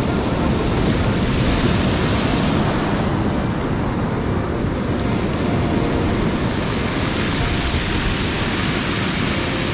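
Ocean surf breaking and washing up the beach, with wind buffeting the microphone; the wash swells about a second in and again near the end.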